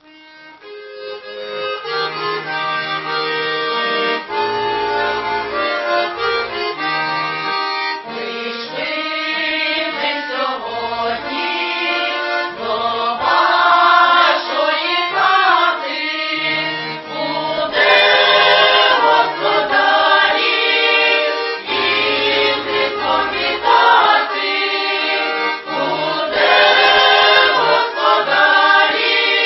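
Accordion plays an introduction, then a women's folk choir comes in about eight seconds in, singing a Ukrainian Christmas carol (koliadka) in parts with the accordion accompanying.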